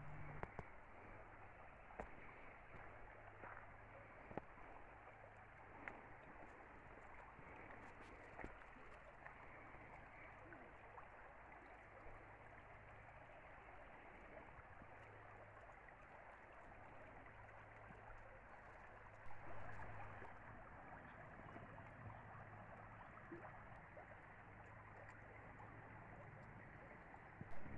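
Shallow creek running over a gravel bed: a faint, steady rushing of water, with a few light clicks.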